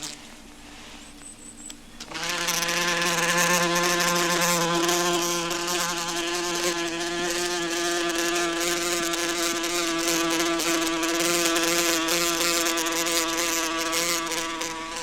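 Queen wasp buzzing in flight: a steady, low, pitched buzz with a slight waver, starting loudly about two seconds in.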